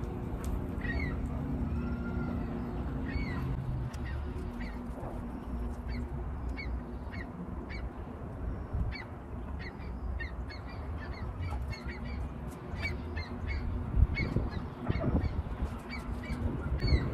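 Outdoor birds calling, a series of short high chirps repeating every half second or so, over a steady low rumble.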